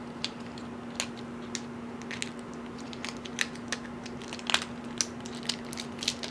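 Irregular small plastic clicks and taps as an action camera and its plastic accessories are handled, over a steady low hum.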